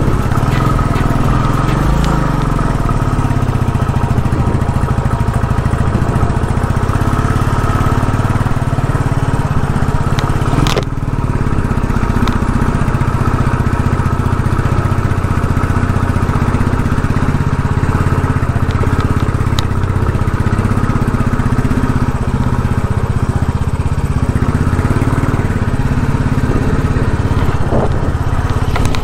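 Royal Enfield Classic motorcycle's single-cylinder engine running steadily as the bike climbs a rough track, heard from the rider's seat. A brief knock about eleven seconds in.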